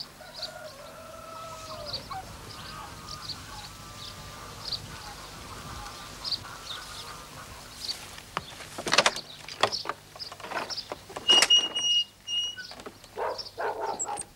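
Farmyard birds chirping about once a second, with fowl calling. About nine seconds in a wooden barn door's latch clatters, and a high, steady squeak follows about eleven seconds in as the door swings open.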